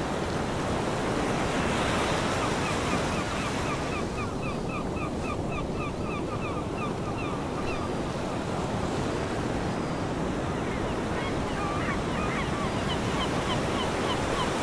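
Ocean surf: a steady wash of waves breaking on a beach. A high chirping repeats about four times a second, from a few seconds in until about halfway, and again near the end.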